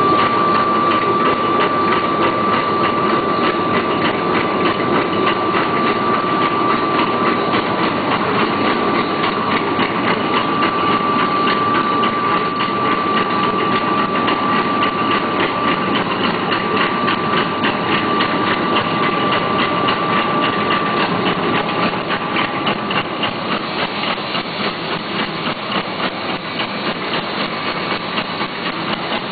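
Mini handkerchief (pocket tissue) making machine running: a rapid, steady mechanical clatter with a high steady whine that fades about three-quarters of the way through.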